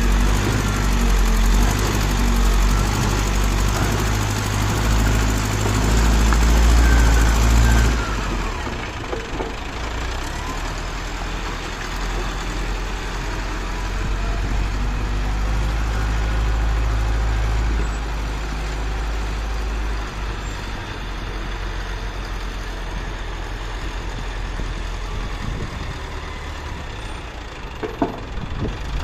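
Diesel engine of a Mahindra Arjun Novo tractor working an ABEL backhoe loader, running steadily. The sound changes abruptly about eight seconds in and shifts again later.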